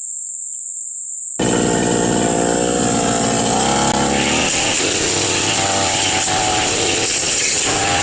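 Steady high insect trilling. About a second and a half in, the two-stroke engine of a brush cutter cuts in abruptly at high revs and keeps running loudly.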